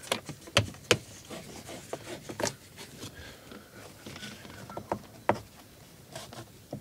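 Plastic A-pillar trim and a microphone cable being handled and pulled at inside an Opel Astra J: scattered light clicks and knocks with soft rubbing between them.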